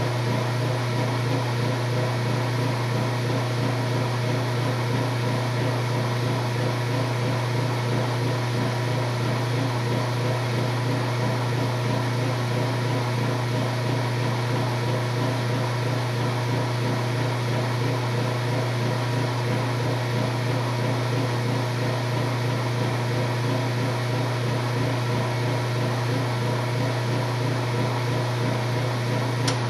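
Washing machine running with a steady, unchanging low hum and a layer of steady higher tones, with one brief click near the end.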